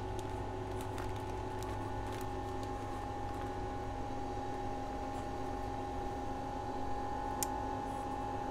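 Steady machine hum with a few constant tones, like a fan or motor running, under faint crinkles and ticks as a pioppino cluster is pulled off its grain spawn bag and set in a plastic tray. One sharp click comes near the end.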